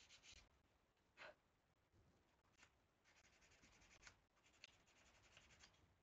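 Faint hand-sanding of a thin wooden stick with a small piece of sandpaper, in runs of quick short back-and-forth strokes. One louder scrape falls in pitch about a second in.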